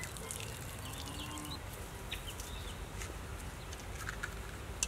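Scattered short bird chirps and calls over a low, steady background rumble.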